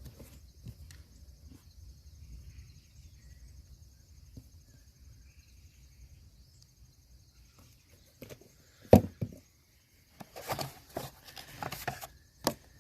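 Handling noises during a motorcycle battery swap: a faint low rumble, then a sharp knock about nine seconds in and a cluster of clicks and knocks near the end.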